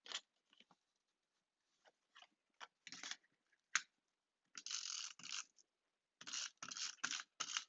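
Paper and cardstock being handled and pressed into place: scattered light taps and clicks, with two longer rustling bursts about four and a half and six seconds in.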